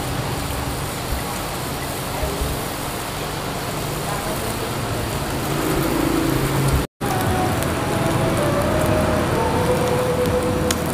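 Meat and fat sizzling on a Lao sindad tabletop grill, a steady hiss that drops out for an instant about seven seconds in.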